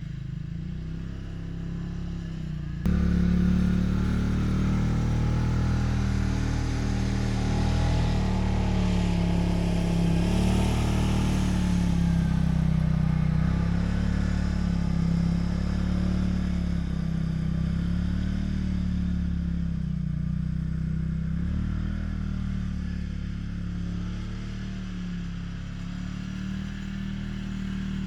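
Quad bike engine running under load, its pitch rising and falling in a slow, regular swell; it gets abruptly louder about three seconds in.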